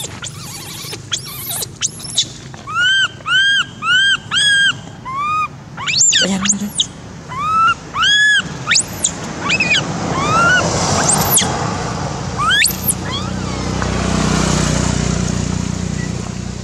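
Baby long-tailed macaque giving distress screams: a run of short, high, arching squeals about two a second, then longer, sharper screams. Near the end a low rushing noise swells and fades.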